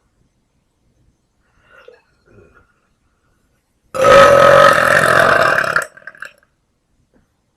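A woman's long, loud burp lasting about two seconds, starting about four seconds in.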